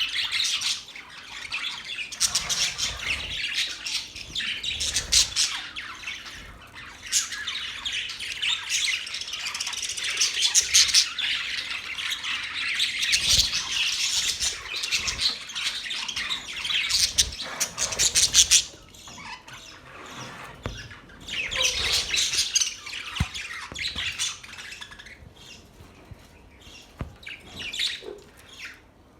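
Small pet parrots chirping and chattering, several birds at once with quick, high chirps and squawks. The chatter is dense for most of the time, then thins to scattered calls after about eighteen seconds.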